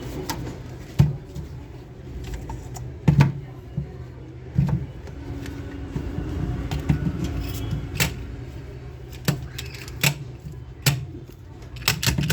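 Irregular sharp clicks and knocks, about eight of them, from the pieces of a plastic toy car ramp being handled and fitted, over a steady low hum.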